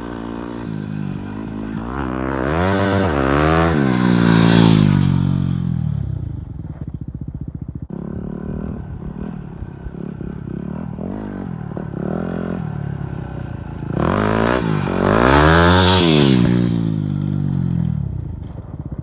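Yamaha WR250R dual-sport motorcycle's single-cylinder engine revving up and dropping back twice, about two seconds in and again near fourteen seconds, running at a low, even pace between.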